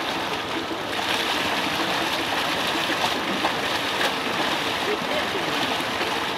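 Water gushing steadily from a tubewell's outlet pipe into a brick tank, with splashing as people bathe in the flow.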